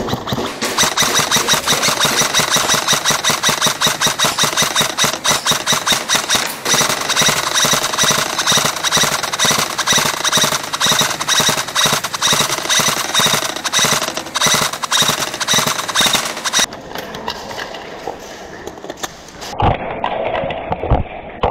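Airsoft guns firing on full auto: a fast, loud clatter of rapid shots in long strings, which stops about three-quarters of the way through, leaving quieter knocks.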